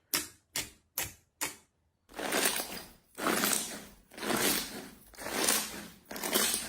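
Slime being handled: sharp pops about two a second for the first two seconds, then four longer squishing sounds, about one a second, as it is squeezed and stretched.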